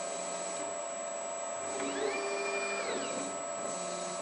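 DIY CNC lathe's axis drive motor traversing the carriage on a cold test run with no cutting: a whine that rises in pitch about two seconds in, holds steady for about a second, then falls away as the move stops. A steady electrical hum runs underneath.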